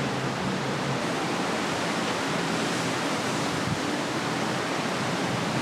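Steady rushing of the sea and wind alongside a cruise ship under way, an even hiss with no breaks.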